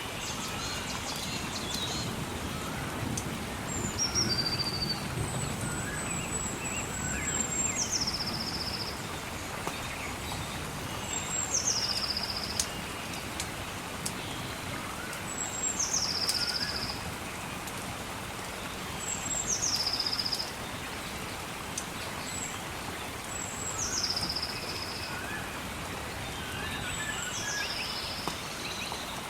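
A songbird repeating the same call about every four seconds: a thin, high note that drops into a short, lower trill. Under it runs a steady hiss of rain or water.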